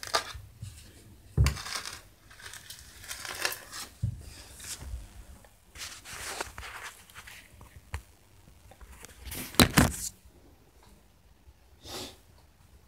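Irregular scraping, rustling and knocking from hands, tools and the phone being handled at floor level, with a loud clatter of knocks about ten seconds in and a single smaller knock near the end.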